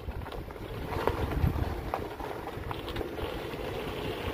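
Wind buffeting the microphone in uneven gusts, with a few faint footsteps on sandy, gravelly dirt.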